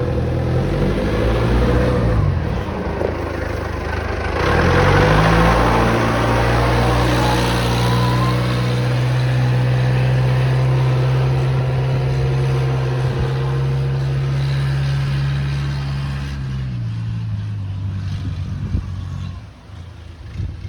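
Multiloader L20 compact wheel loader's engine running, revved up about four seconds in and held at high revs, then dropping back to idle near the end.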